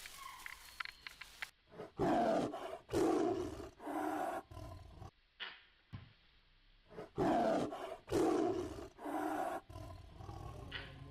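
Tiger roaring: a run of four short, loud roars about two seconds in, then three more about seven seconds in.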